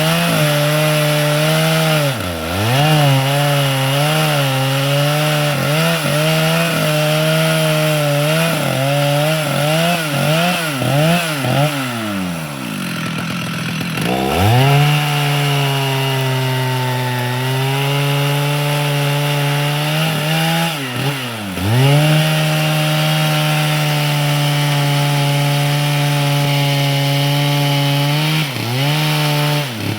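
Two-stroke chainsaw cutting a large tree at high revs, its engine pitch wobbling as the chain loads up in the wood. The revs drop away briefly about two seconds in, for a couple of seconds around the middle, and twice more later before climbing back.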